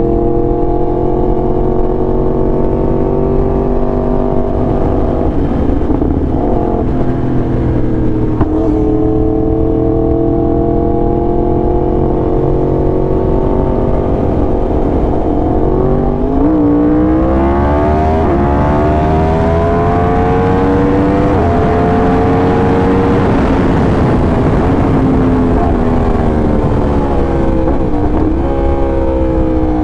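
Yamaha R1's crossplane inline-four with an SC Project exhaust under way, first easing off slowly, then accelerating hard through a couple of gear changes about halfway through, then easing off again. Wind and road noise swell while it is at speed.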